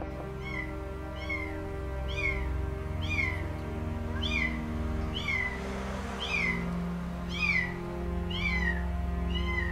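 A kitten mewing over and over, about once a second, each cry a short high rise and fall, as it calls from inside the hollow pillar where it is trapped. Background music with held notes plays underneath.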